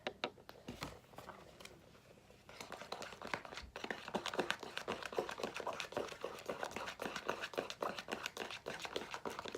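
Fluffy slime being stirred and worked, giving a rapid wet crackling of tiny pops. It starts sparse and becomes dense and continuous about two and a half seconds in.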